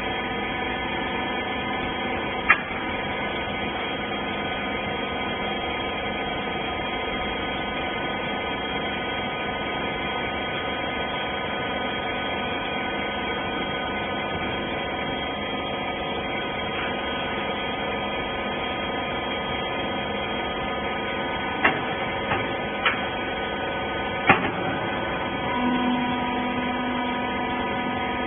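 Hydraulic rags baler's motor and pump running with a steady hum, with a few sharp clicks about two seconds in and again near the end, and a new steady tone that joins in near the end.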